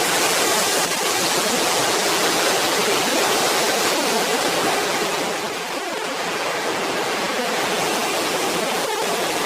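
Steady rushing hiss with no pitch, dipping slightly in level about six seconds in.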